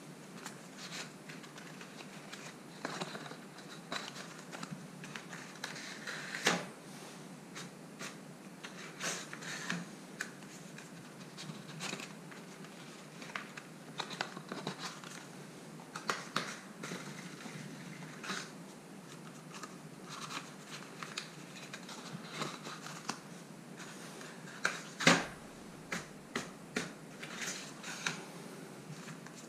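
Light irregular taps, clicks and rustles of paper-craft prism pieces being handled, lifted off and set down on paper columns and bases, with the sharpest knock near the end.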